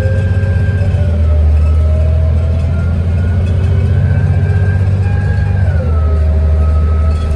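City bus engine and transmission running under way: a loud, deep, steady drone with a whine that slowly rises in pitch as the bus gathers speed, then drops about two-thirds of the way through as the transmission shifts up.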